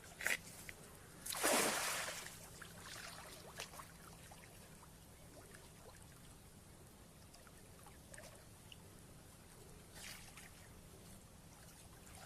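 Water splashing as a fishing net is worked in the water: one loud splash about a second and a half in, then smaller splashes and trickling, with another brief splash near the end.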